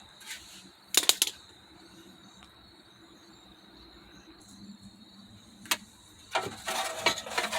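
Hand tools working on exhaust bolts under a car: sharp metallic clinks about a second in and again near the end, then a run of metal clattering and rattling as the bolts are worked loose.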